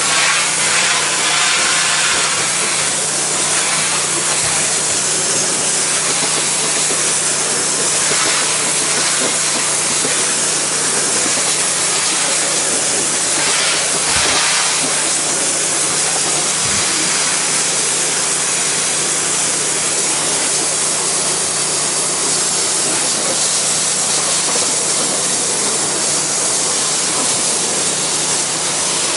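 Pressure washer spraying water at low pressure through the black soaping tip onto painted deck boards: a loud, steady hiss of spray with a steady low hum underneath.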